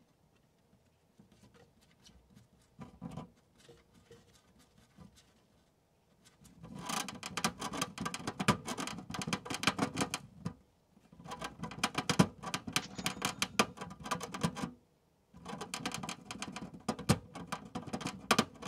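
Long-haired hamster gnawing on its clear plastic cage, rapid scratchy clicks of teeth on plastic: faint and scattered at first, then three long dense bouts from about a third of the way in, with short pauses between. It is a persistent cage-chewing habit that various fixes have not stopped.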